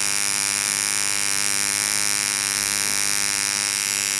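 Electric tattoo machine buzzing steadily as it runs, its needle being worked into skin.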